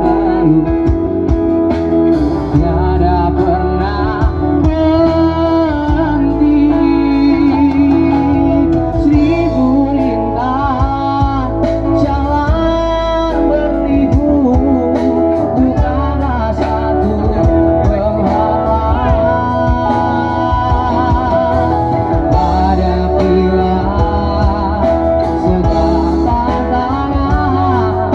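A band playing a pop song: a wavering, vibrato-laden lead melody over guitar chords, bass and drums.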